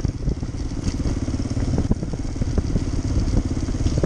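Motorcycle engine running as the bike rides along, with scattered small knocks and clatter.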